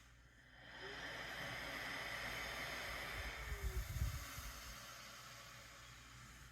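Faint hiss of air from the YA50G APAP machine through its nasal mask. It swells about a second in and eases off again after a few seconds, with a few low bumps near the middle.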